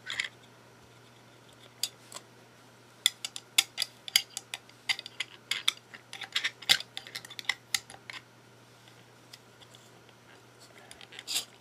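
Light metallic clicks and taps of fingers prying at and handling the platter mounts and separator ring on the spindle of a disassembled hard drive, coming in a quick irregular run in the middle with a louder click near the end.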